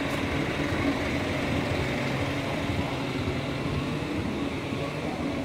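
Steady rumble and hiss of riding a Segway along a paved road, from the transporter's electric motor and tyres, with no distinct events.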